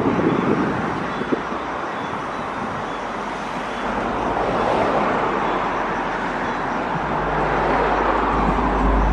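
Airbus A330 airliner's jet engines running with a steady roar; a deep low rumble comes in about seven seconds in.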